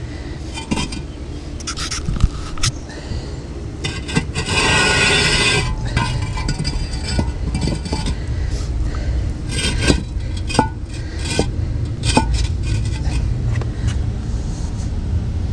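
Hollow concrete blocks being shifted and set against one another: scraping and sharp knocks of block on block, with one longer gritty scrape about four seconds in.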